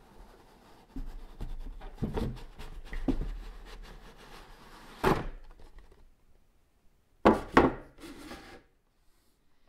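Cardboard lid of a model kit box rubbing and scraping as it is worked loose and lifted off. A sharp hit about five seconds in, then two loud knocks in quick succession about seven and a half seconds in, as the lid and box are set down on a wooden table, followed by a brief rustle.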